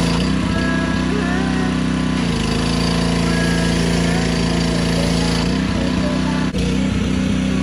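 Gas pressure washer's small engine running steadily under load, with the hiss of the high-pressure water spray. The engine note wavers briefly about two seconds in and again near the end.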